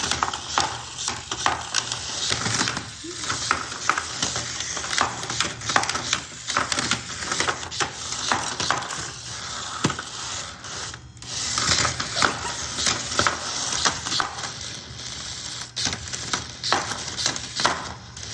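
Small toy battle robots clattering against each other and the arena, a dense, irregular run of plastic clicks, knocks and rattles.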